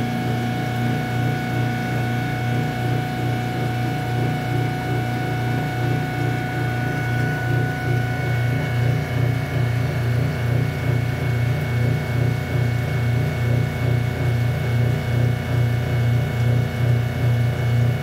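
Kenmore top-load washing machine running with a loud steady hum and a higher whine that stops about halfway through, then throbs in a regular pulse of about two beats a second. This is a fault noise the machine had stopped making and has started making again.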